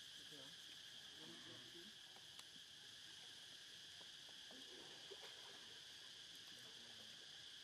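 Faint, steady high-pitched drone of insects, with faint short wavering sounds lower down and a soft tick twice.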